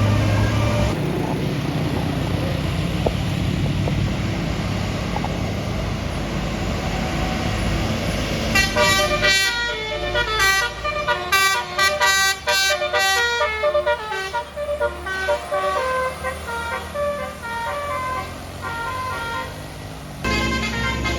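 A bus engine running under load with road noise, then about eight seconds in a basuri multi-trumpet musical horn (telolet) plays a quick melody of short stepped notes for about eleven seconds before the engine noise comes back.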